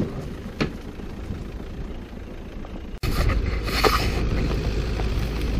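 Car driving slowly over a rough dirt track, heard through a bonnet-mounted camera, with a light knock about half a second in. About three seconds in the sound cuts abruptly to a louder, steady low rumble of wind on the microphone.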